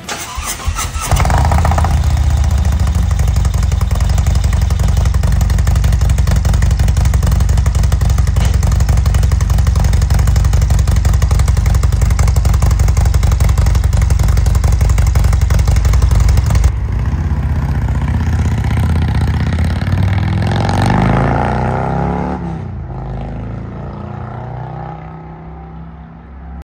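Harley-Davidson Milwaukee-Eight 114 V-twin with a Wood 22XE torque cam and Fuel Moto Jackpot 2-1-2 exhaust starts about a second in and runs steadily and loudly. After an abrupt change, the same motorcycle is heard riding by, its engine rising and then falling in pitch as it fades away.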